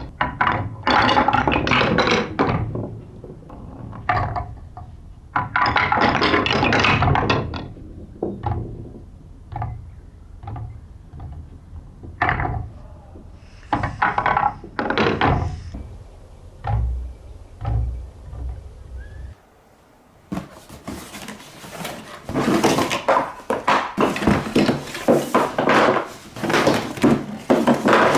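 Balls rolling down a TrixTrack wave-slope marble run, clicking and knocking as they drop step by step: separate bursts of rapid clicks at first, then a denser, near-continuous clatter in the last third as many balls run at once.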